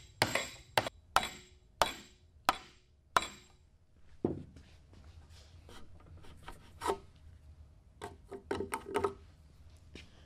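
Wooden mallet striking a bench chisel to chop an angled wedge mortise in a cypress tenon: six sharp knocks about two-thirds of a second apart, then one more blow. After that, quieter scraping and paring as the chisel is pushed by hand through the wood.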